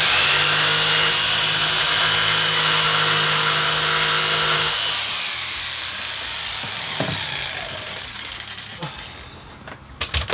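Electric jigsaw cutting an opening for a plug socket in the painted wooden front panel of a bench seat. It runs steadily for about five seconds, then fades away over the next few seconds, with a few sharp knocks near the end.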